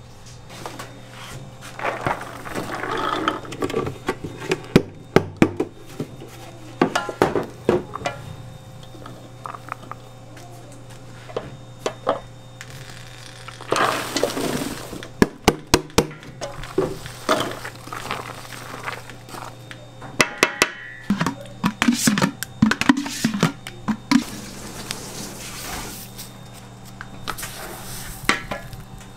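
Kitchen food-prep sounds: irregular sharp clinks and knocks of metal against large steel bowls and pots, and a few longer rustling stretches of chopped vegetables being tipped and stirred, over a steady low hum.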